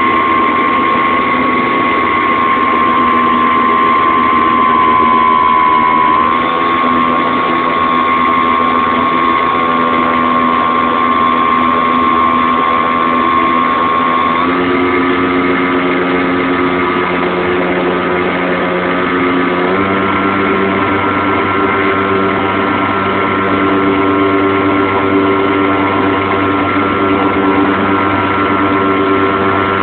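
RC model airplane's motor and propeller running steadily, its speed shifting in steps a few times as the throttle changes.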